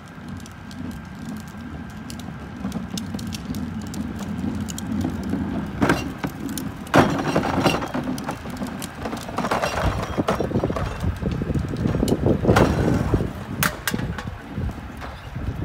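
Plastic wheeled trash carts rattling over pavement and clunking as they are handled, over the low running of a split rear loader garbage truck's diesel engine. The clatter gets louder and busier about halfway through.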